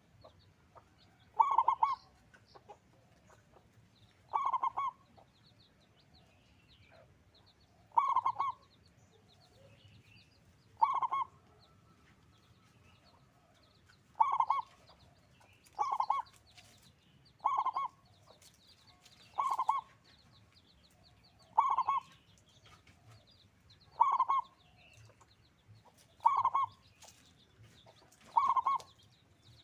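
Zebra dove (perkutut) cooing: a short, loud call repeated about every two to three seconds, about a dozen times, with faint high chirps of small birds behind.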